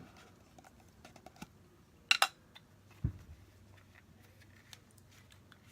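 Small clicks and taps of a cardboard box and packaging being handled and pried at, with two sharp clicks about two seconds in and a dull thump about a second later.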